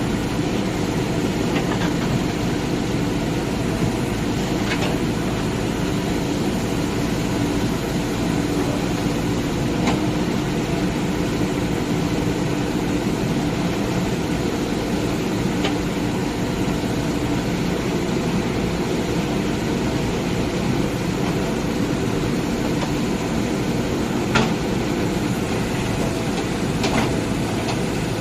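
Diesel engine of a backhoe loader running steadily, with a few short sharp knocks from the machine's work.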